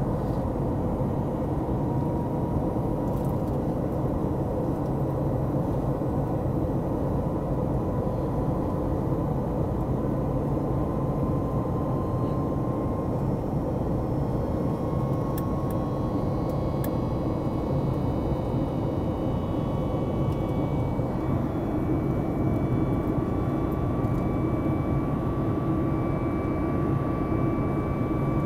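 Cabin noise of a Boeing 737 MAX 8 in the climb, heard from a window seat by the wing: the steady rush of its CFM LEAP-1B engines and the air outside, with a faint whine that slowly rises in pitch.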